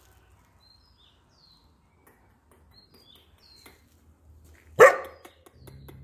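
A dog barks once, loud and sudden, nearly five seconds in. Faint bird chirps sound in the quiet before it.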